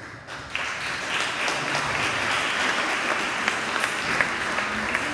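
Audience applauding, a dense patter of many hands clapping that starts about half a second in.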